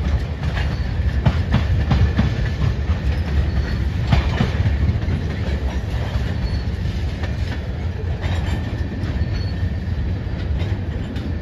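Railroad tank cars of a freight train rolling past: a steady low rumble of steel wheels on rail, broken by irregular clacks as wheels cross rail joints, with a faint high wheel squeal.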